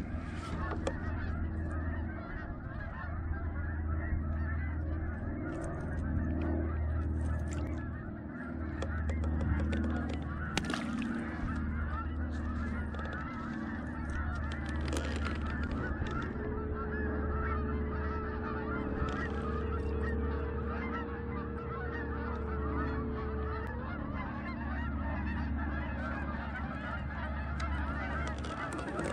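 A flock of geese honking continuously, many calls overlapping, over the steady low hum of the kayak's motor.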